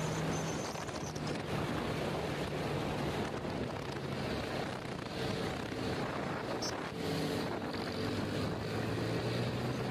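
Motorcycle ride at a steady cruising speed: wind rushing over the microphone, with the bike's engine humming underneath. The hum shifts to a lower pitch about halfway through, as trucks pass close alongside.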